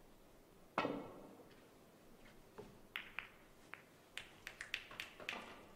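A snooker cue strikes the cue ball with one sharp knock, then a run of about ten sharp clicks follows as the balls collide around the pack of reds.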